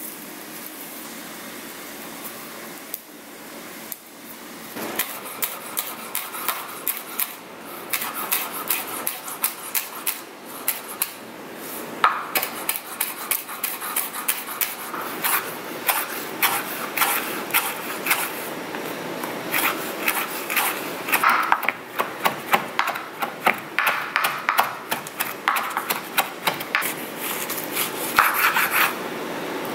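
Chef's knife chopping fresh chives and parsley on a bamboo cutting board: quick runs of sharp taps of the blade against the wood, several a second, starting about five seconds in. Near the end the knife cuts through a lemon.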